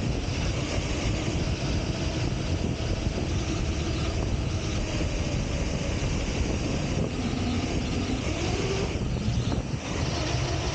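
Large RC buggy driving over desert sand: a steady rushing noise of motor, drivetrain and tyres, with a faint whine that rises and falls in pitch as it speeds up and slows.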